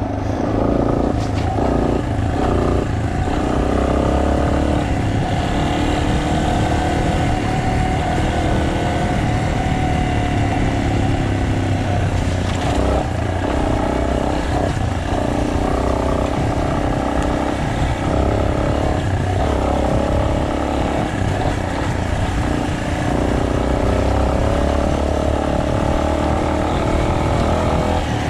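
Trail motorcycle engine running under way, its pitch rising and falling gently as the throttle and speed change.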